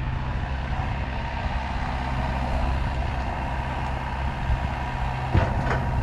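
Kubota KX121-3 mini excavator's diesel engine running steadily, with a sharp knock about five seconds in followed by a couple of lighter clanks.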